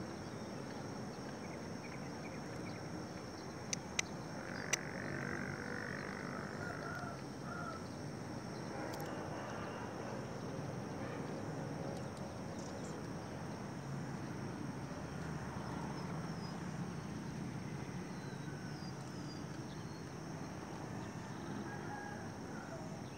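Steady outdoor ambience of a quiet railway platform with faint bird calls, and three sharp clicks about four to five seconds in.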